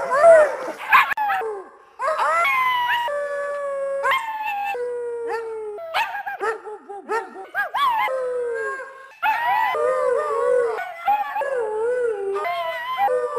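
Harnessed huskies barking and yipping excitedly for about two seconds. Then a Siberian husky howls in long, wavering notes while a woman howls along with it, the two voices rising and falling together.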